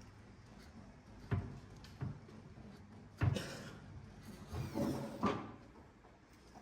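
Kitchen cabinet doors being opened and closed: a few separate knocks and clunks, the loudest about three seconds in, then a brief scraping rustle with two more knocks around five seconds.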